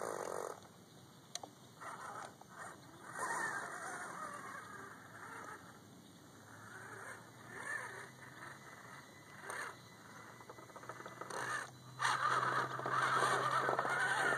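Axial SCX10 scale RC crawler driving through wet sand and mud: a low steady hum from its electric motor and gears, with bursts of scraping and churning from the tyres, loudest in the last couple of seconds.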